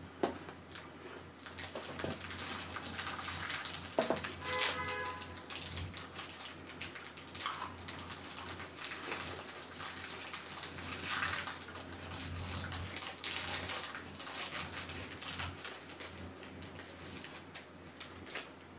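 Plastic snack wrappers crinkling and crackling in the hands as packets are opened, in irregular bursts through the whole stretch, with a brief pitched sound about four and a half seconds in.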